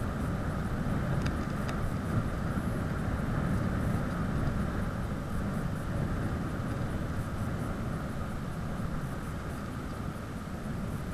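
Steady rush of wind over the microphone of a camera on a bicycle coasting downhill at speed, deep and even throughout.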